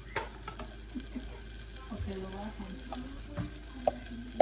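Chopped onion, fruit and chiles frying in oil in a pan, sizzling steadily, with a few sharp knocks of a utensil stirring against the pan.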